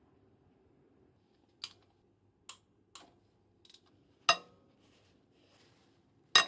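A series of sharp metallic clinks and knocks, about six in all, from hand tools or parts being handled and set down. The two loudest come a little past four seconds in and at the very end, each ringing briefly.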